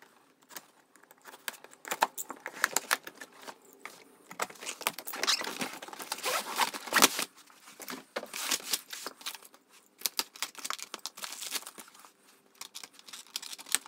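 Cardboard blaster box being handled and opened: irregular rustling, scraping and tapping of cardboard as the lid comes off and the inner tray is slid out.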